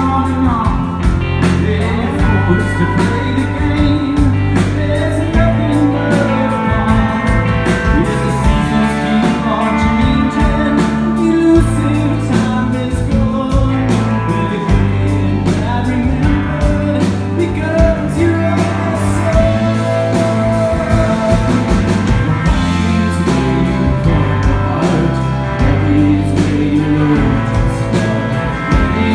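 Live band playing: electric guitars, bass guitar and drums, with a lead vocal.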